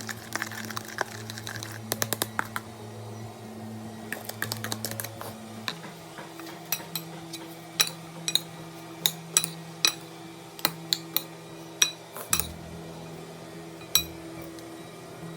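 Sharp, irregular clinks of a utensil against a dish, a dozen or more, most of them in the second half, over background music with long held notes.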